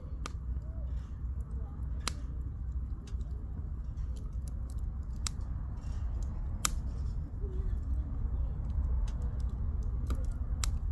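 Firewood burning in a campfire, crackling with a handful of sharp, irregular pops over a steady low rumble.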